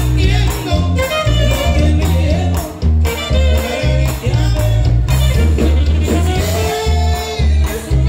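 Live norteño dance music: bass and drums keep a steady beat under a held melody line.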